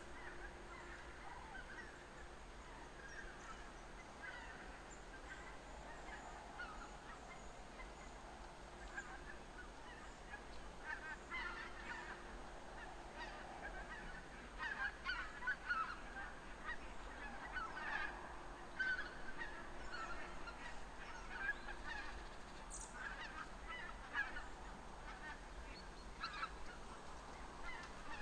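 Geese honking: many short, overlapping calls, sparse at first and growing denser and louder about halfway through.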